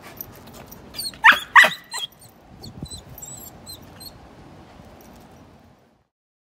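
Goldendoodle puppy yelping twice in quick succession about a second in, two sharp high cries that fall in pitch, followed by faint small clicks and low background noise.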